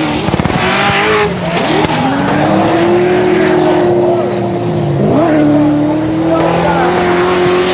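Drift car engine held at steady high revs over tyres skidding on the tarmac. The revs dip briefly about five seconds in and climb straight back.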